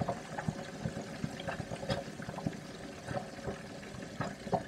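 Wet, sticky crackling and squelching of fatty slow-cooked pig's ear being pulled apart by hand close to the microphone, as a run of many small irregular pops.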